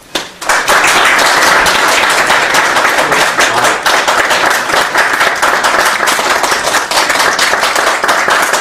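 Audience applauding, a dense, even clapping that breaks out about half a second in, at the end of a talk.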